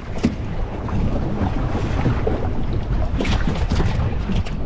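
Wind buffeting the microphone aboard a boat, a steady low rumble, with several sharp clicks and knocks, a cluster about three seconds in and more near the end.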